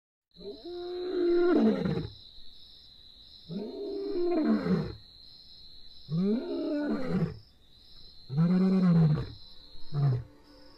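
Male lion roaring: four long calls about two and a half seconds apart, each rising then falling in pitch, then a short grunt near the end.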